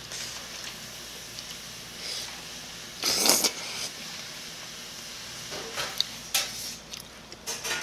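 Eating sounds of mala tteokbokki taken from a spoon: a short loud slurp about three seconds in as a spoonful goes into the mouth, then quieter chewing with a few light clicks.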